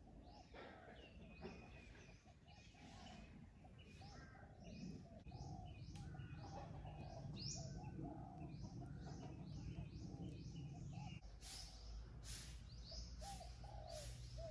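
Birds chirping steadily, many short calls repeating several times a second, over a low rumble that grows stronger in the second half.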